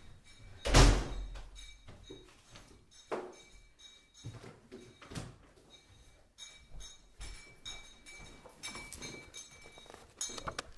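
A heavy thud about a second in, followed by scattered smaller knocks and clicks, with a faint high tone underneath.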